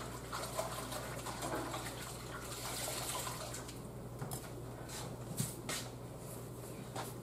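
Kitchen faucet running into the sink, loudest about two to three seconds in, followed by a few light clicks and knocks of handling.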